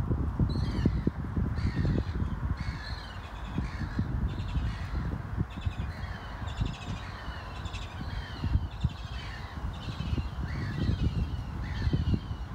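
Tufted duck ducklings peeping: a continuous chorus of short, high, falling peeps, several a second, over a low rumble.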